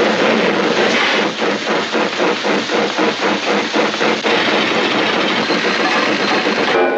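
Cartoon sound effect of a noisy engine-like machine running, pulsing about three or four times a second at first, then steady, and cutting off abruptly near the end.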